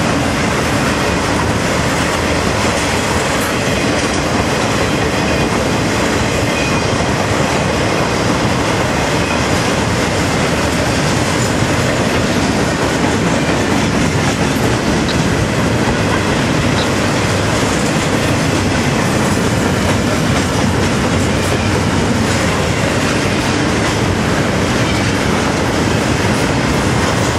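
CSX intermodal freight train's double-stack container cars rolling past close by: a loud, steady rumble of steel wheels on rail.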